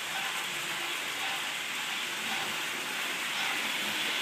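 Märklin model train running on its track, a steady hiss.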